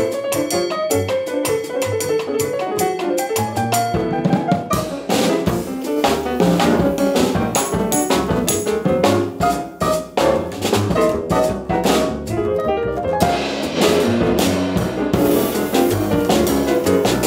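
Jazz piano trio playing: grand piano, upright double bass and a Gretsch drum kit. Piano and bass lead at first, then about four seconds in the drums come in dense and busy, with many cymbal and drum strikes under the piano.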